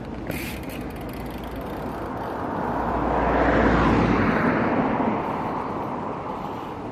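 A vehicle passing by: a rushing noise that swells to its loudest about halfway through and then fades away.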